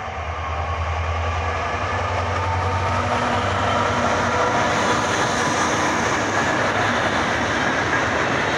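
Vossloh Euro 4000 diesel locomotive with an EMD 16-710 two-stroke V16 engine passing close by under power. Its low engine drone is strongest over the first three seconds, then gives way to the steady rumble and rattle of loaded container wagons rolling over the rails.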